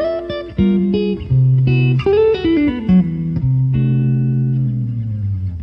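Guitar music: plucked notes over a low bass line, with a note bent downward about two seconds in, settling into a held chord that slowly fades near the end.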